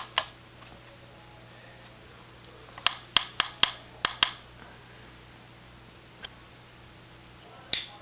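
Push buttons on an LED visor strobe light's control panel clicking as they are pressed to change the flash pattern: two clicks at the start, a quick run of about six around three to four seconds in, and one more near the end.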